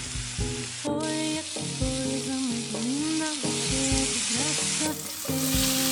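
Onions, minced garlic and chorizo sizzling in melted butter in a pan as they are stir-fried, a steady hiss, under background music with a regular beat.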